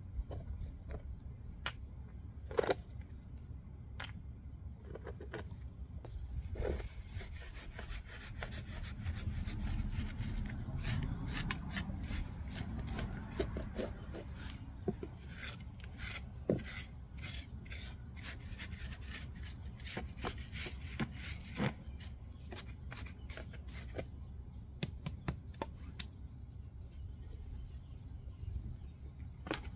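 Small rocks and crushed stone being pulled and scraped out from under an air-conditioner condenser pad, by hand and with a flat metal tool. Scattered clicks and knocks of stones against each other, with gritty scraping of gravel, over a low steady rumble.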